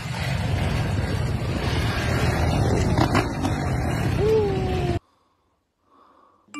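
Wind buffeting the microphone over a motorcycle engine running, heard from a moving motorcycle in traffic, with a few clicks about three seconds in. It cuts off abruptly about five seconds in to near silence.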